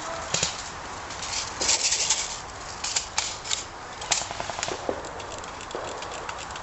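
Airsoft guns firing in an outdoor skirmish: sharp cracks and short bursts, at irregular intervals and thickest about two seconds in.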